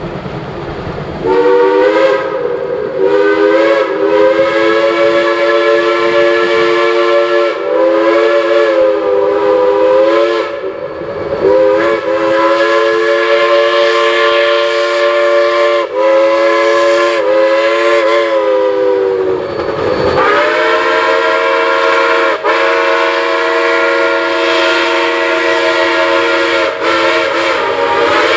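Steam chime whistle of a geared Shay steam locomotive, several notes sounding together as one chord. It blows a long series of blasts, some long and some short, with brief breaks between them.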